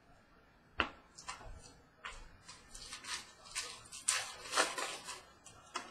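Trading cards being handled: a sharp click a little under a second in, then a run of short rustles and slides of cards and pack wrappers.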